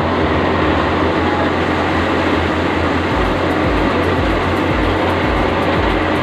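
Tractor-powered wheat thresher running while wheat straw is fed into it: a loud, steady mechanical din with a low, unevenly pulsing hum.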